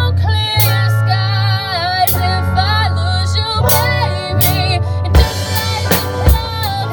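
Live band playing a song: a lead vocal with vibrato over bass and drum kit, with a cymbal wash and sharper drum hits in the last couple of seconds.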